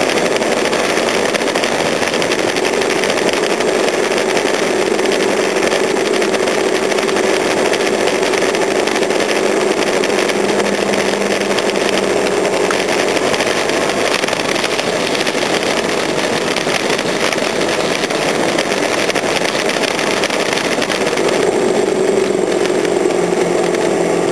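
A small engine running steadily at an even pitch under a constant rushing noise, with no clear changes in speed.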